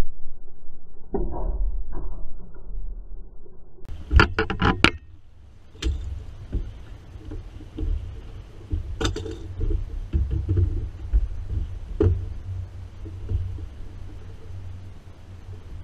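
A hooked fish splashing at the surface beside a small boat, over a steady low rumble. About four seconds in comes a quick run of five sharp clicks, then a few single knocks as fishing gear and the landing net are handled against the boat.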